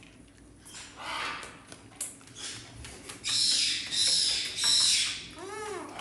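Eclectus parrot calling: three loud, harsh squawks in a row, then a short call that rises and falls in pitch. Before them come scattered small clicks and crunches from a raccoon eating dry food out of a steel bowl.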